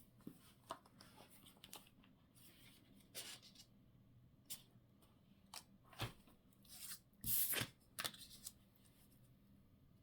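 Paper and card being handled: scattered short rustles and small taps, with a brief louder rustle about seven seconds in.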